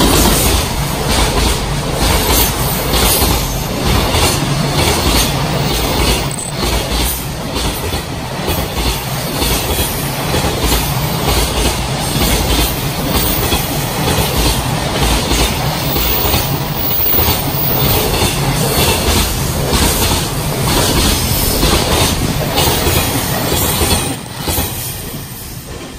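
Long freight train of container flat wagons, many running empty, passing close by at speed. Its wheels clatter in a steady rhythm over the rail joints. The noise drops away near the end as the last wagons go by.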